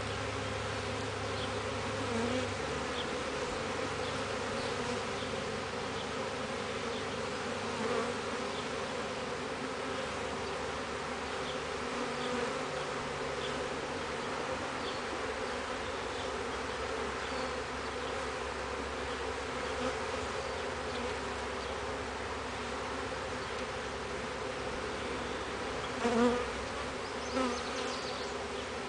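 Honey bees buzzing steadily around an open hive, the hum of a busy, active colony, with a couple of louder buzzes sweeping past near the end.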